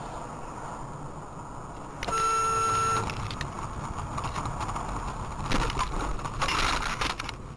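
Car interior road noise from a dashcam car on a snowy road, with a one-second beep about two seconds in. Near the end come louder bursts of noise and a few sharp knocks as the car slides sideways toward the snowbank.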